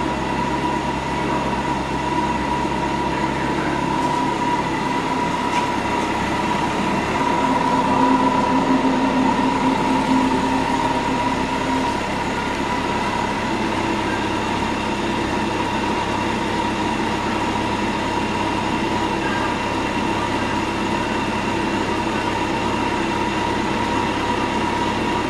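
Kawasaki Concours 14's inline-four engine running steadily at idle, with its catalytic converters removed and the stock muffler kept. It settles to a slightly different pitch about four seconds in and again around twelve seconds.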